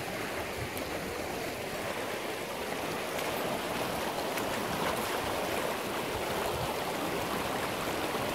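Shallow, fast-flowing creek rushing steadily over a gravel and rock bed.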